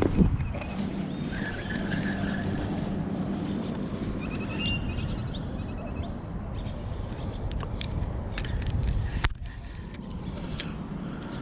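Steady low rumble of wind on the microphone, with handling noise from a fishing rod and spinning reel: a knock at the start and several sharp clicks about two-thirds of the way in.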